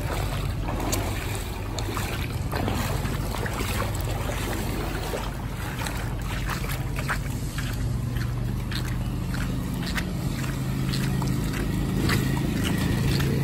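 Footsteps splashing and sloshing through shallow floodwater and over a wet road, with a steady low rumble underneath.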